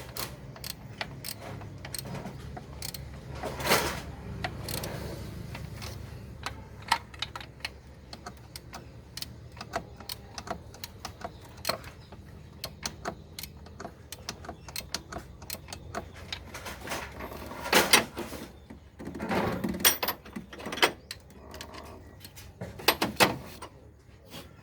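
Hand tools and metal engine parts clicking and clanking during engine reassembly, with a few louder knocks, over a low steady hum.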